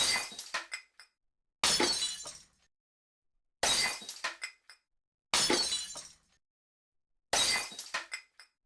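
Glass smashing, five separate crashes about two seconds apart. Each crash is a sudden shatter followed by a short tinkling of falling shards that dies away within about a second, with silence between crashes.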